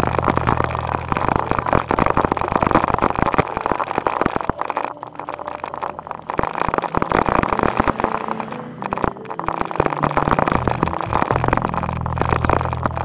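A JJRC Q76 1:16 4WD RC climbing car driving over dirt and broken brick, heard from a camera mounted on the car: its electric motor and gears run, over constant rattling and clicking as the tyres and plastic body bounce over the rubble. The drive eases for a moment about five seconds in, then picks up again.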